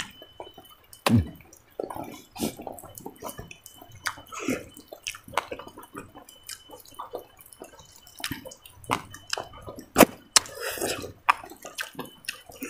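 Close-up eating sounds of a man chewing a mouthful of rice by hand: irregular wet smacks and clicks of lips and mouth, with one louder sharp click late on.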